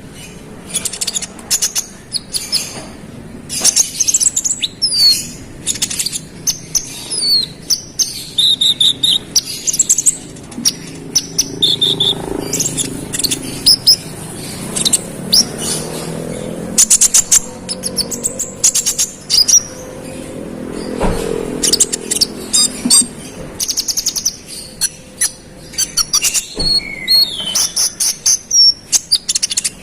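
A konin, a small songbird, singing persistently: fast runs of sharp chirps, short whistled notes and rapid ticking trills, one phrase after another with hardly a break.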